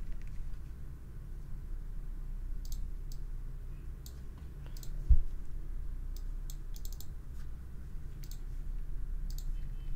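Scattered clicks of a computer mouse and keyboard, with one dull thump about five seconds in, over a low steady hum.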